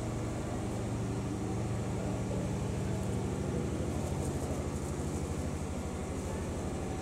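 An engine running steadily: a low, even drone with a fast regular pulse.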